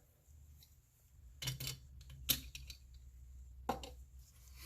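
A few light clicks and clatters of small diecast model car parts being handled and set down, over a faint low steady hum.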